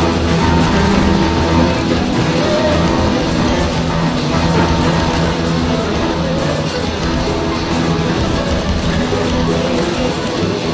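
Background music: a rock track with guitar, playing at a steady level throughout.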